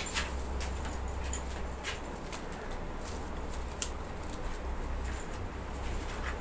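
Vegetable kurma simmering in a pan on a wood-fired clay stove: irregular small pops and crackles over a steady low rumble.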